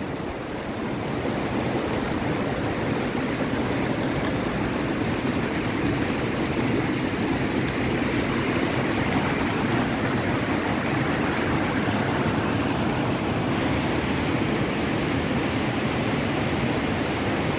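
Steady rush of water pouring over the small waterfalls at an old water mill on a town river.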